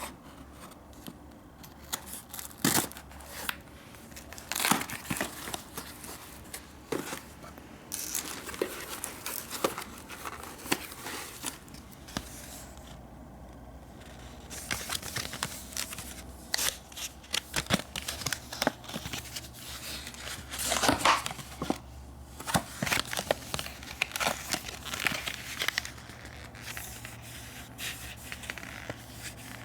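Packaging being unwrapped by hand: irregular crinkling and tearing of the wrapping, with scattered sharp clicks.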